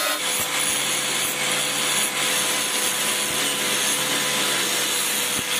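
Angle grinder running steadily with a constant whine while a rusty metal plate is ground against its abrasive disc.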